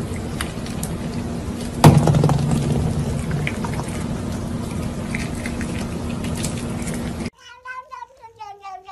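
A steady noisy hiss with a low hum and a sharp knock about two seconds in, which stops abruptly a little after seven seconds. Then a tabby cat gives a long, wavering yowl that falls slowly in pitch.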